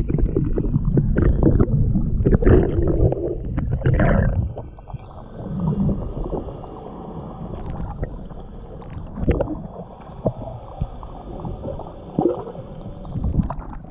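Handling noise on a small fishing boat: a low rumble with thumps for the first four seconds, then quieter with a few scattered knocks.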